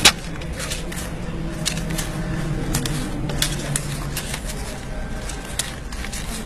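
Paper banknotes being counted by hand: a quick run of crisp flicks and snaps as bills are thumbed off a stack one after another, at an uneven pace, with the sharpest snap right at the start.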